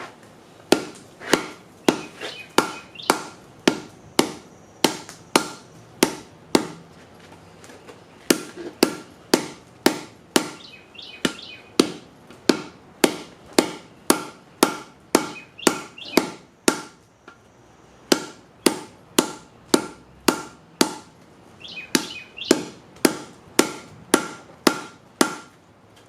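Blacksmith's hammer striking a workpiece on a block of wood used as a makeshift anvil, about two blows a second in runs with a few short pauses, each blow with a short metallic ring.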